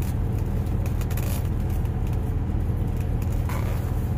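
Steady low engine rumble heard inside a parked truck's cab, with chewing and a few faint clicks over it.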